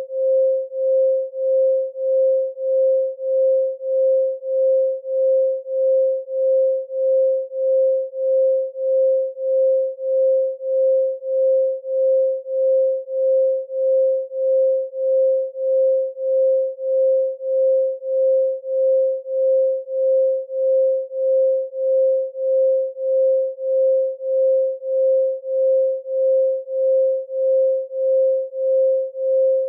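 Synthesized 528 Hz solfeggio sine tone, a single pure pitch. It swells and fades evenly about three times every two seconds.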